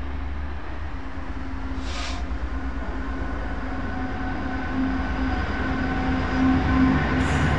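Freightliner Class 66 diesel locomotive's two-stroke V12 engine running as it hauls a container freight train past, a steady drone growing louder as it approaches. A short hiss about two seconds in and another near the end.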